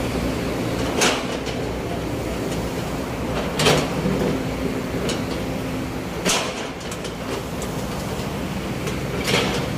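Sumitomo S265 excavator's diesel engine running steadily under load while digging, with a short sharp knock four times, about every two and a half seconds.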